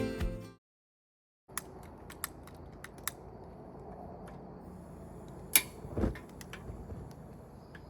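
Background music cuts off. After a moment of silence comes low ambient room or porch noise with scattered sharp clicks and taps; the loudest is a click a little past the middle, followed by a dull thump. A faint, steady, high-pitched tone runs underneath.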